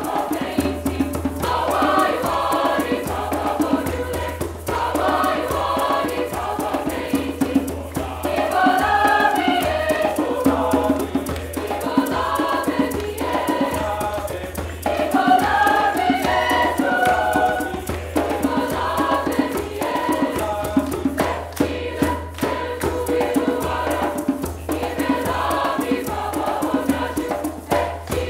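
Mixed choir of young voices singing in parts, with the singers clapping their hands in rhythm.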